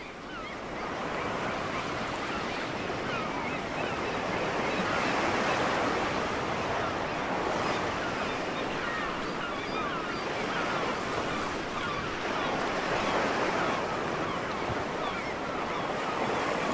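Ocean waves washing gently onto a beach in a steady surf, fading in over the first second.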